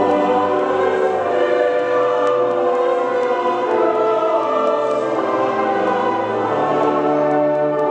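Background choral music: a choir singing slow, held chords.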